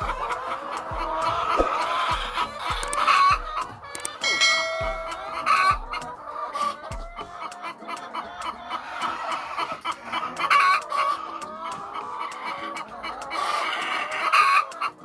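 A flock of laying hens clucking and calling, with louder squawking calls every few seconds.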